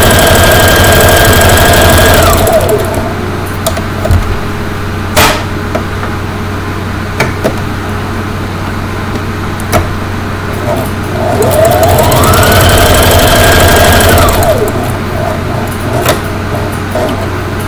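Brother LX3850 electric sewing machine stitching in two runs, its motor whine falling in pitch as it stops about two seconds in. It starts again about eleven seconds in, rising as it speeds up, runs steadily for a few seconds and winds down near fifteen seconds, with a few sharp clicks in the pause between. The machine is sewing smoothly on its newly replaced rotary hook shuttle.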